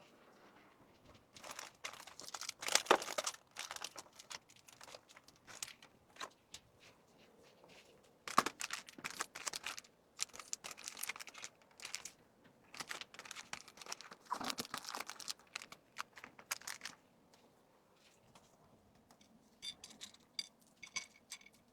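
Packaging crinkling and rustling as items are handled and packed, in irregular bouts with short pauses between them, ending with a few light clicks.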